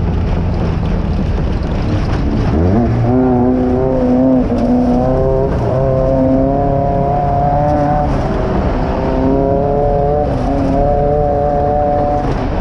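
Off-road race car's engine running hard, heard from inside the car. It revs up steeply about two and a half seconds in, then holds high revs, dipping and climbing again several times, over heavy rough rumble and rattle.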